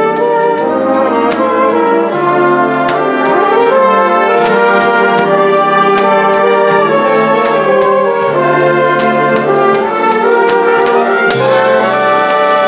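XO flugelhorn playing a sustained melody over an accompaniment with a bass line and regular light percussion ticks. A brighter high hiss joins near the end.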